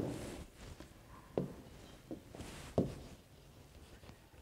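A few soft, sharp taps of a pen on an interactive touchscreen whiteboard as an expression is written, three taps in about a second and a half, over quiet room tone.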